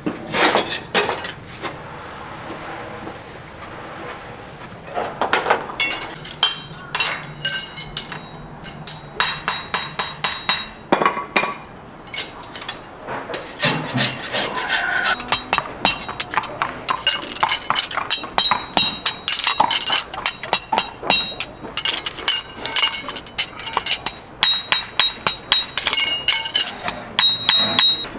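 Farrier's hammer tapping on a steel horseshoe in quick runs of strikes, each tap ringing. It is preceded for the first few seconds by a softer scraping.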